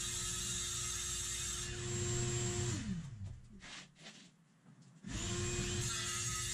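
Circular saw running and cutting through a sheet of plastic laminate. About three seconds in it is switched off and winds down, and the sheet rustles as it is moved. About five seconds in the saw starts up again and goes back to cutting.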